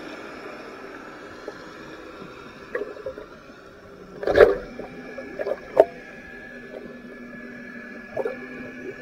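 Underwater sound picked up through a camera's waterproof housing: a steady hum with faint held tones, broken by a few sharp knocks and clicks, the loudest about four seconds in.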